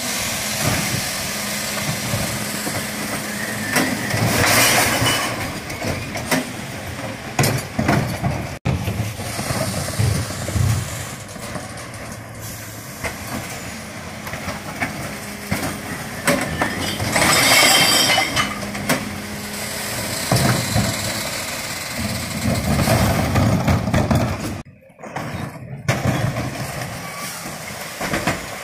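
Mercedes-Benz Econic refuse truck with a Faun Variopress body running at the kerb with a steady hum, while its rear bin lifters tip wheelie bins. Twice, about four seconds in and again near the middle, a loud rattling crash of glass, cans and plastic falls into the hopper, among clanks and knocks of bins and lifter.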